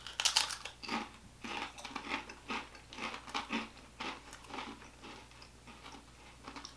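Two people biting into and chewing ridged, wavy potato chips: many irregular crisp crunches, thinning out after about four seconds.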